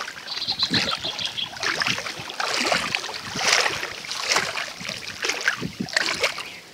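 Water splashing and sloshing in irregular bursts around a person wading while hauling a wet gill net out of shallow floodwater.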